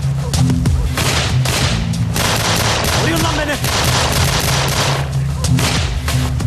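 Gunfire in a staged shootout: many shots in quick succession, one after another without pause, over a steady low drone.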